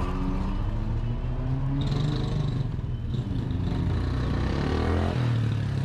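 Car engine running at low speed over tyre and road noise, its note rising and falling as the car drives along a street.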